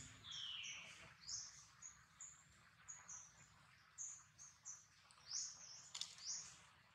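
Faint bird calls: short, high, falling chirps repeating two or three times a second, with one longer falling call about half a second in.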